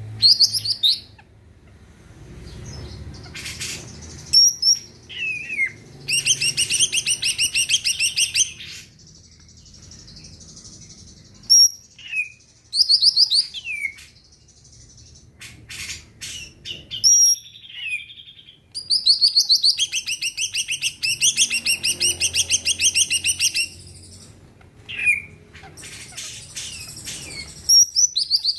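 A cucak ijo (green leafbird) singing. Short slurred whistles and sharp clicks come between two long bursts of very fast, rattling repeated notes: the keepers' 'tembakan' (shots). The first burst runs for about two seconds, the second for about four.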